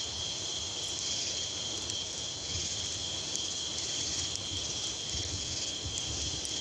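Steady night chorus of crickets and katydids, an unbroken high trill. Underneath it, a low wind rumble and a few faint crackles from the campfire.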